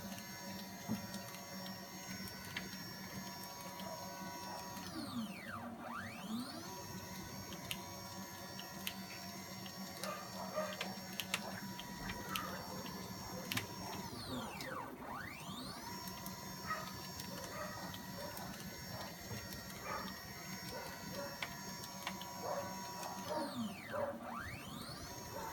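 CNC machine's axis drive motors whining as the machine moves back and forth. The pitch falls as the axis slows to a stop and rises again as it speeds up in the other direction, three times about nine seconds apart, over a steady hum with scattered ticks.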